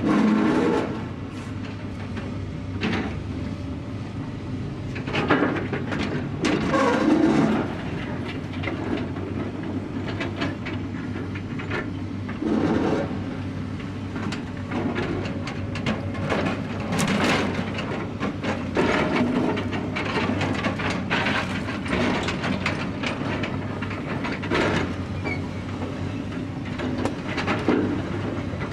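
Construction site ambience: a steady low machinery rumble with irregular knocks and bangs scattered throughout.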